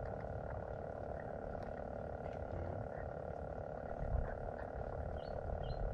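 Steady chorus of frogs calling from the fishponds, a dense unbroken drone, with a few short high chirps near the end.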